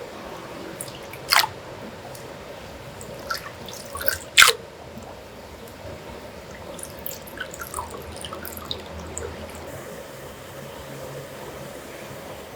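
Handling sounds: a few sharp clicks and knocks, two of them louder, then a patter of light ticks, over a low steady hum.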